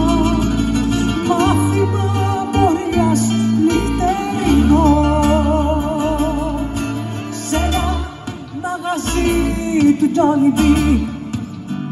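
Live acoustic music: two acoustic guitars playing under a melody of long notes with vibrato, in a passage without lyrics. The music dips quieter about eight seconds in, then picks up again.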